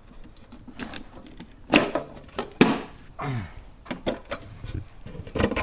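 Hard plastic mower parts being handled and fitted together: a series of clicks and knocks, two of them sharp and loud a couple of seconds in.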